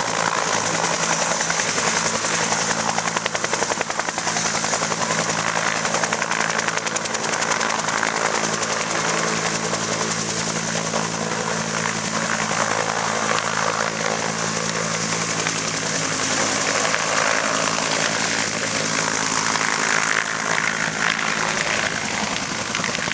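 Bell UH-1 Iroquois helicopter with its two-blade main rotor chopping steadily over the running turbine. It lifts off the ground and flies away low across the field, and the sound stays loud throughout.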